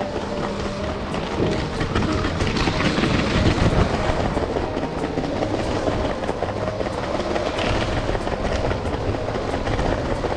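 LEGO City cargo train running on its plastic track: a steady motor whir with regular clicking of the wheels over the track joints, about three clicks a second.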